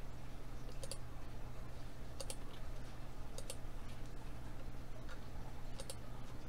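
Computer mouse clicking four times, a second or two apart, each a quick pair of clicks, over a steady low hum.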